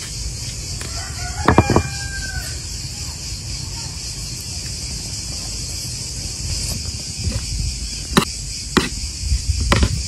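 A rooster crows once, about a second and a half in, over a steady high insect buzz. A few sharp clicks follow near the end.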